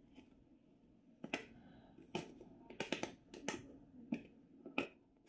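Small plastic black pepper container being opened by hand: its cap and seal give a series of faint, sharp clicks and crackles over a few seconds.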